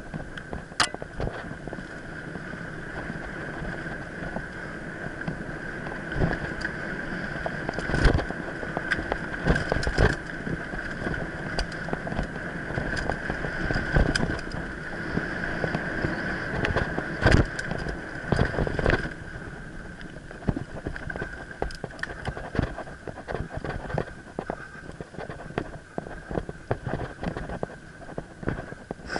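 Mountain bike ridden fast over a rough forest trail: steady tyre and drivetrain noise with frequent sharp rattles and knocks as the bike hits bumps, heaviest about eight seconds in and again around seventeen seconds, over a steady high-pitched whine.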